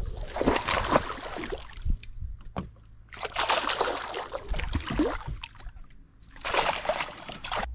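Water splashing in three bursts of a second or two each: a hooked largemouth bass thrashing at the surface as it is fought in.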